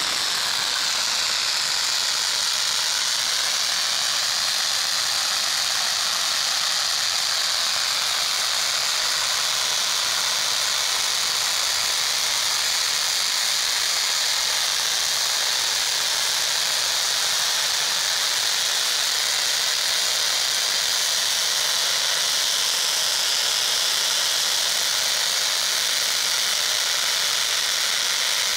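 Pyrotechnic ground fountain burning: a steady, even hiss of spraying sparks, with no bangs.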